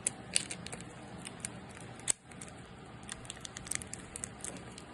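Irregular small crackles and clicks of sticky tape being handled and pressed onto a plastic water bottle.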